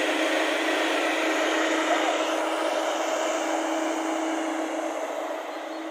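JCB tracked excavator's diesel engine and hydraulics running steadily with a constant hum as the boom and bucket are raised, easing off slightly near the end.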